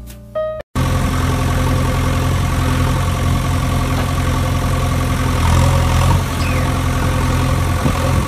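A few notes of piano music end abruptly, and just under a second in a large engine starts idling steadily and loudly. It is a recorded engine sound laid over the play, since the string-pulled plastic toys have no motor.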